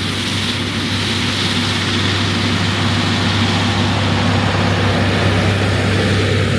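New Holland tractor's engine running steadily with a constant low drone while mowing hay with its rear-mounted hay cutter.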